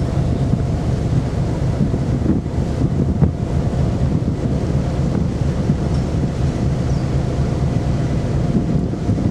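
Wind buffeting the microphone on the open deck of the ferry MV Armorique under way, over a steady machinery hum from the ship and the rush of its churning wake.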